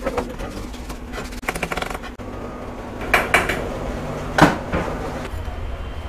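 Metal clinking and clanking of a wheel and its fittings being handled on a wheel-balancing machine: a quick rattle about one and a half seconds in, then two louder clanks around three and four and a half seconds in, over a steady low hum.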